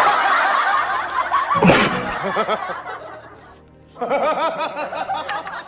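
Bursts of laughter over background music, with a sharp hit about a second and a half in. The laughter fades out around three seconds in and starts again about four seconds in.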